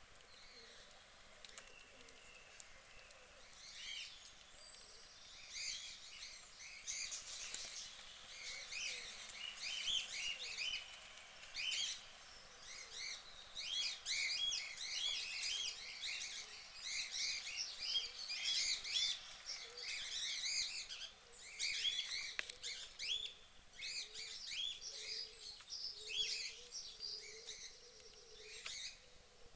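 Many small birds chirping and tweeting in a dense chorus of short, overlapping calls, building up a few seconds in.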